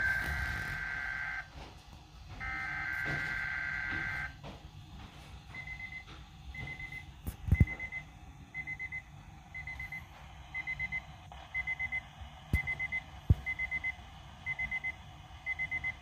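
Midland weather alert radio receiving a winter storm warning: two long buzzy data tones, then its alert alarm beeping, a short high beep about once a second. A few sharp knocks sound over the beeping.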